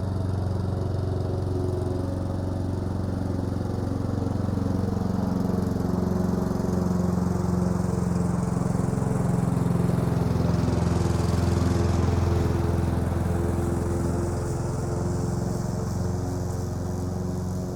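Lawn mower engine running steadily while mowing. It grows louder to a peak about eleven or twelve seconds in, then fades a little as it passes from left to right.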